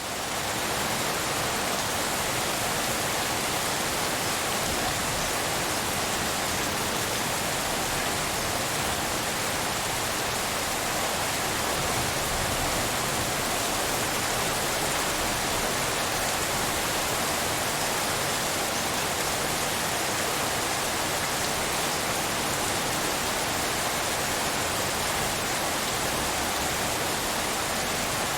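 Steady, dense rain hiss, even and unbroken, with no single drops or thunder standing out; it fades up in the first moment, then holds level.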